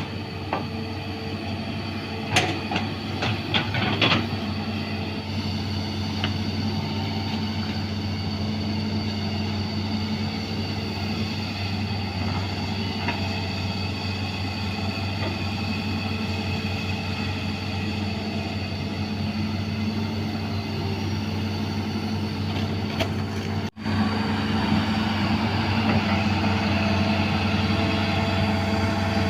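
A 20-ton hydraulic excavator's diesel engine runs steadily under load as it works. There are a few sharp metallic knocks in the first few seconds. About three-quarters of the way through the sound cuts out for an instant, then carries on a little louder.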